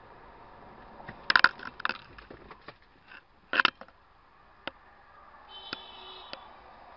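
Vehicle collision: a rapid cluster of crunching impacts about a second in, then a second heavy crunch a couple of seconds later, followed by a single sharp knock. A brief steady tone sounds near the end.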